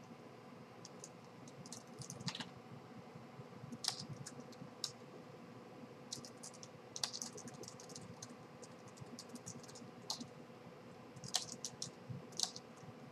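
Typing on a computer keyboard: several short runs of keystrokes with pauses between.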